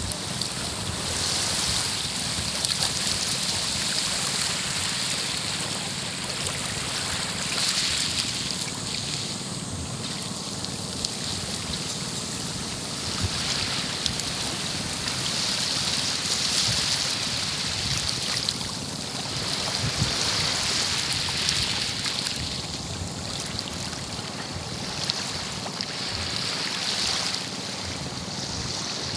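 Small waves lapping and washing on a pebble-and-sand beach: a steady hiss that swells and fades every few seconds.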